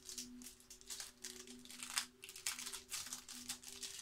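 Foil trading-card pack crinkling as it is handled and worked open, in irregular crackles with a louder one about halfway through.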